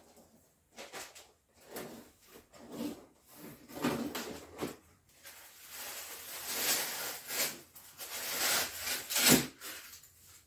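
Cardboard shipping box being opened and unpacked by hand: repeated scraping and rustling of cardboard and packing, busiest in the second half, with a sharp knock about nine seconds in.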